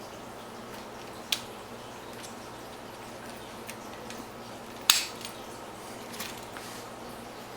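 Small metal clicks and taps of a retaining pin and washers being fitted on a stroller's rear axle to hold the wheel on. There are two sharper clicks, the louder one about five seconds in.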